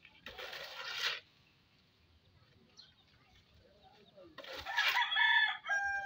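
A rooster crows near the end, one long call. About half a second in, a shovel scrapes briefly across the concrete floor.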